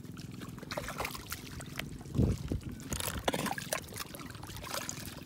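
Muddy water trickling and splashing as a scoop net of freshly caught fish and shrimp is emptied into a bucket, with scattered wet clicks and a louder splash about two seconds in. A faint steady low hum runs underneath.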